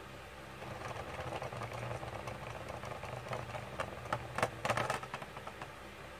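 Infinity Nado spinning top wobbling at the end of its spin on a plastic stadium floor: a growing scraping rattle, then a few quick clacks about four to five seconds in as the dying top tips and its rim strikes the floor.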